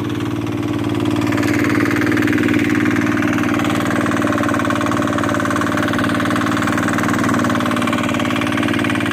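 Small fishing boat's motor running steadily, with a steady hiss over it.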